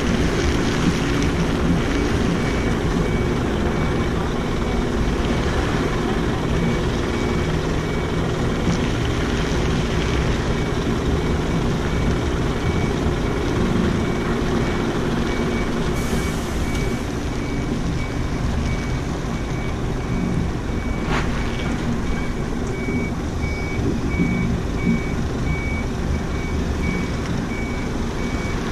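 A truck's engine running steadily while its reversing alarm sounds a repeated high beep. A brief hiss about halfway through.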